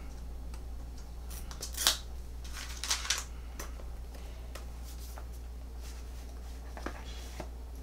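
Cardboard and paper packaging of an Apple Pencil Pro box being handled and opened by hand: two brief scraping, rustling sounds about two and three seconds in, then a few light clicks and taps.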